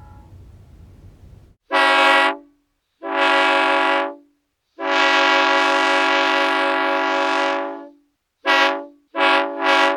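Train air horn sounding several notes at once in a series of blasts: two short ones, one long blast of about three seconds, then two quick short ones near the end. Before the first blast there is a faint low rumble with fading tones for about a second and a half.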